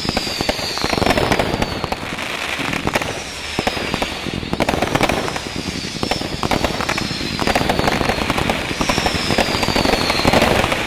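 Night Drive 144-shot aerial finale set by Brothers Pyrotechnics firing: consumer aerial cakes shooting rapid volleys of shots with crackling breaks. A falling whistle recurs every couple of seconds over the shots.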